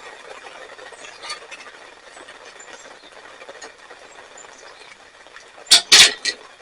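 A faint steady hiss, then a quick cluster of three or four sharp knocks near the end.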